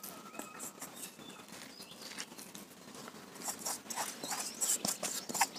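Hands handling ground spice paste and chilli powder on a banana leaf: soft rustling of the leaf and the paste. About three seconds in it turns into quick, scratchy crackling ticks.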